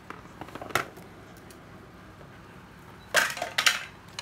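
Hard plastic cordless drills knocking and clattering as they are handled and set down on a tiled floor. There are a few light clicks about a second in, then a louder burst of knocks and rattles around three seconds in.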